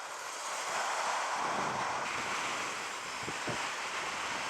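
Steady rush of wind buffeting the microphone on a moving motorcycle, an even hiss with no speech.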